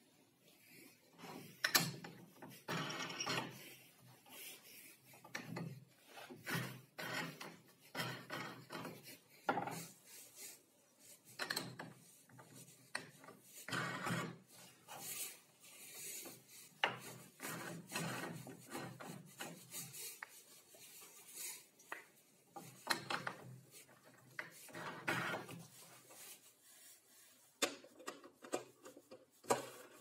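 Plywood star knobs handled by hand: wood rubbing and sliding on wood, with irregular knocks and clicks as the knobs are turned, slid and set down.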